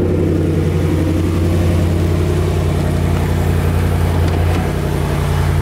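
Car engine running at a steady low hum, heard from inside the cabin while driving.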